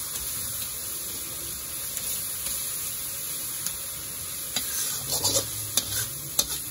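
Garlic, onion and shrimp paste sizzling in oil in a metal wok while a metal spatula stirs them; from about two-thirds of the way in, the spatula scrapes and clicks against the pan several times.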